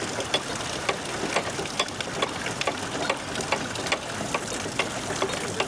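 Canal lock paddle gear being wound with a windlass, its ratchet pawl clicking evenly about twice a second over a steady rush of water.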